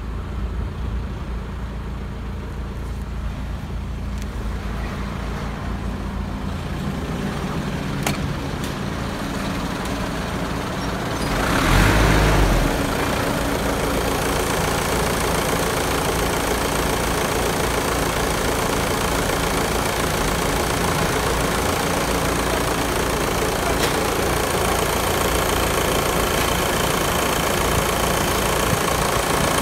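VW 1.9 TDI (AFN) four-cylinder turbodiesel idling steadily at about 1000 rpm, heard first from inside the cabin. About twelve seconds in there is a loud thump, after which the engine is heard under the open bonnet, louder and with a sharper diesel clatter.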